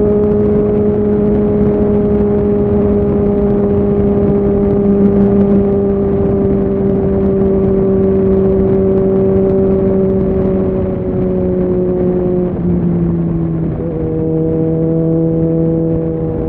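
Suzuki Bandit 650's inline-four engine pulling under way at steady revs, its note sinking slowly. About twelve seconds in the pitch drops at a gear change, and it shifts again a second or so later.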